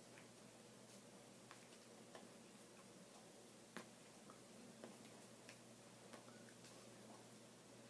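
Near silence: faint room hum with scattered small clicks and ticks, the sharpest a little under four seconds in.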